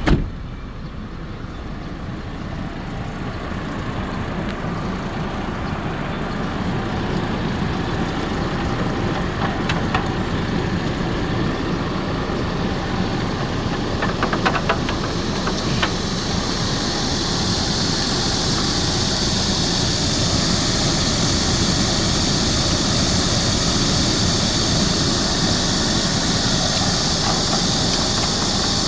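Hummer H3 engine idling steadily. From a little past halfway a high hiss builds in and holds, refrigerant gas flowing into the air-conditioning system, with a few light clicks around the middle.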